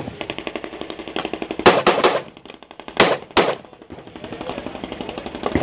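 Gunshots from a competitor firing a course of fire: one shot at the start, three in quick succession a little under two seconds in, then two more around three seconds in. A fast, fainter rattle of cracks runs between them.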